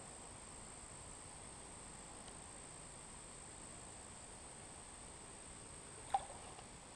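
Quiet pondside ambience with a faint, steady high-pitched insect trill, with one short sharp sound about six seconds in.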